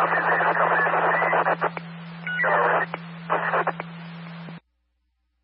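Scanner radio channel open on harsh static with a steady low hum underneath, coming in bursts with short dips, then cutting off abruptly near the end as the squelch closes.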